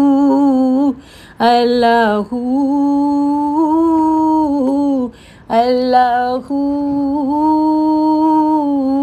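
Devotional Islamic song: a solo voice sings "Allah" twice. Each time a short wavering ornament runs into a long held note of two to three seconds, with a brief gap between phrases.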